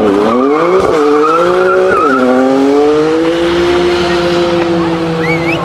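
BMW M3 (F80) with its twin-turbo straight-six revving hard under wheelspin. The revs climb and drop twice, then hold steady while the rear tyres spin and squeal in a smoky burnout.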